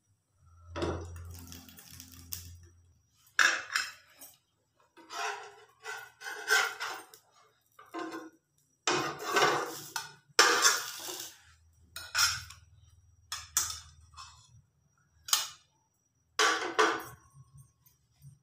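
Kitchen clatter of cookware being handled: a glass lid set on a non-stick frying pan, then a spatula scraping in the pan and a ceramic plate knocking against its rim. About a dozen separate knocks and scrapes come at uneven intervals.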